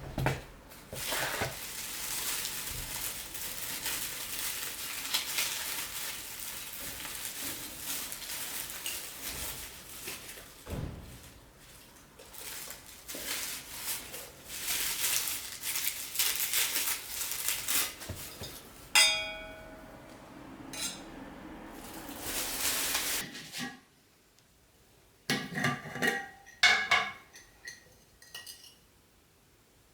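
Kitchen handling sounds: dishes and utensils clattering over a long steady hiss, with one ringing clink about two-thirds of the way through and a few more clinks and knocks near the end.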